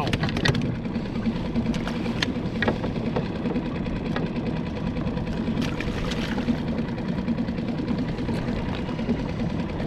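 Small boat outboard motor idling steadily, with a few light clicks over it.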